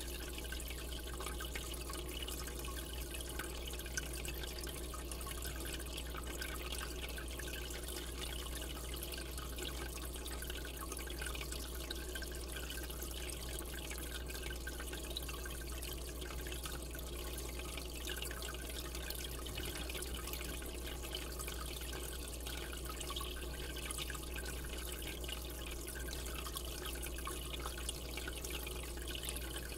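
Aquarium water trickling and dripping steadily, with a low steady hum underneath.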